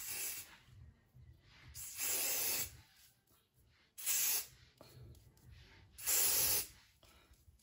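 Aerosol extreme-hold hair spray hissing in three sprays of under a second each, about two seconds apart, after a fainter short spray at the start.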